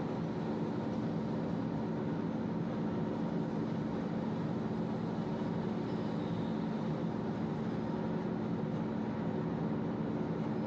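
1L532 vertical turning lathe running steadily, a constant machine hum with a low drone as its table turns while machining a radius.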